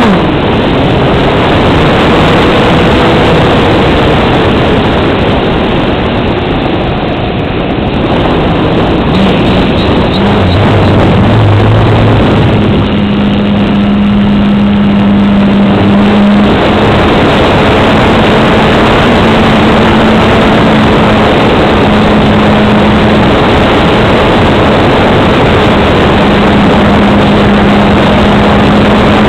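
Engine and propeller of a radio-controlled Sukhoi Su-26 aerobatic model, heard from a camera mounted on the plane: a loud, continuous rush of engine and airflow noise. It thins out briefly twice, about a quarter of the way in and again near the middle, as the throttle and attitude change through aerobatic manoeuvres.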